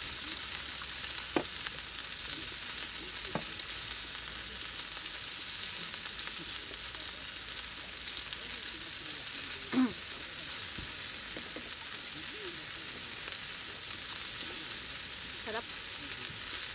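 Yakiniku meat sizzling steadily in a pan on a portable gas stove, with a few short knocks, the loudest about ten seconds in.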